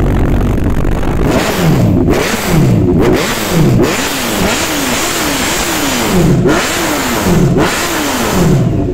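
Kawasaki Z900's 948 cc inline-four, breathing through an aftermarket full-system exhaust with headers, idling and then revved in about eight quick throttle blips, each rising and falling back toward idle.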